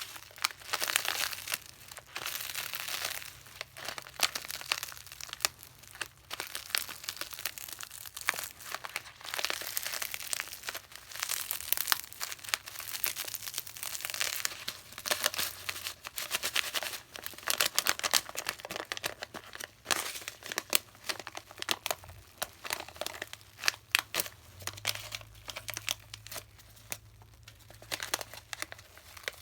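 Crackling of Pinalen and Magic Bath cleaning-product foam: a dense, irregular stream of tiny crackles and crinkles that runs on without a break.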